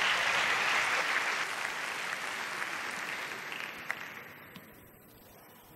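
Tennis crowd applauding between points, the applause dying away about four to five seconds in, with a single sharp tap near the end of it.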